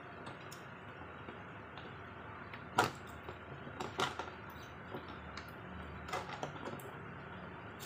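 A cardboard figure box being handled and opened by hand: scattered clicks, knocks and scrapes of card against the table and fingers, the loudest knock about three seconds in, others around four and six seconds, over a steady hiss.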